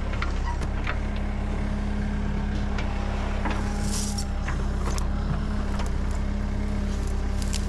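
Backhoe engine running steadily at an unchanging speed, with a few light clicks and knocks over it.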